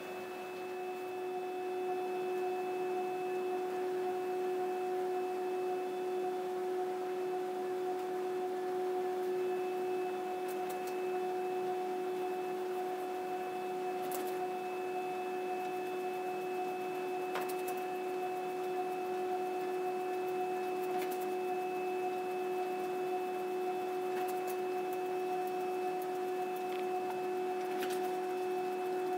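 Steady pitched whine of a MICROPLEX F36C continuous-form colour laser printer running, with a few faint clicks.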